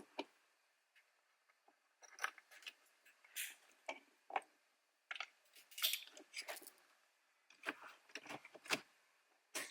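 Irregular clicks, taps and rattles of plastic dashboard trim and wiring connectors being handled and fitted back in place in a 2019 Toyota RAV4, starting about two seconds in.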